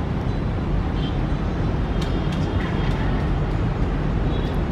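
Steady low rumble of outdoor background noise, with a faint steady high tone above it.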